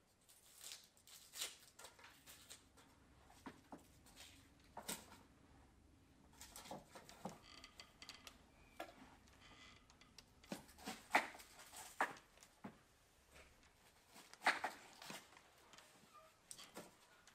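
Faint, irregular taps, clicks and rustles in a quiet small room, with a few sharper clicks a little after the middle and again near the end.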